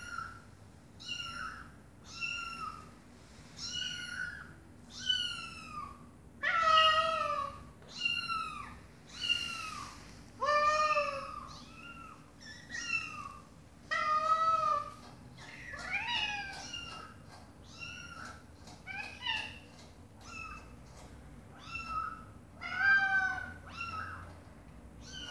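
Kittens and their mother cat meowing back and forth: a steady run of short, high, falling meows about once a second, a few lower and louder calls among them.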